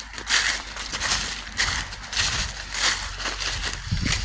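Footsteps crunching over the forest floor at a steady walking pace, about one step every two-thirds of a second.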